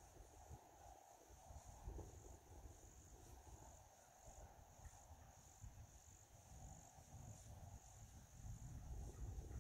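Faint, steady high-pitched trilling of insects, pulsing gently, over a low rumble.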